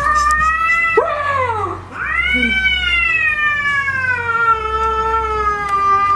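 Domestic cat yowling defensively at fake wolf-paw gloves reaching toward it, a threatened cat's warning call. A drawn-out yowl trails off about a second in, a short one follows, then one long yowl from about two seconds in that slowly falls in pitch.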